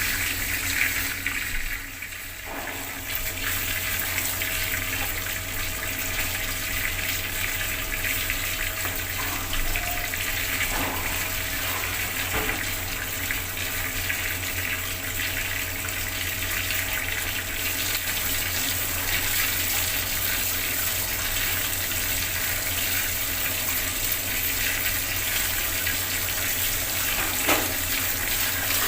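Bathroom water tap running steadily, the stream splashing down with a continuous hiss, dipping briefly about two seconds in.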